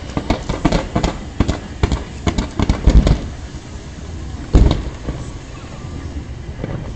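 Fireworks going off in a rapid run of cracks and bangs for about three seconds, then one loud boom about four and a half seconds in, then fading to a low rumble.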